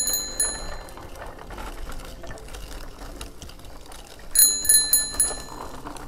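A handlebar bicycle bell rung in a quick flurry of dings at the start, then a second flurry about four and a half seconds in, each about a second long.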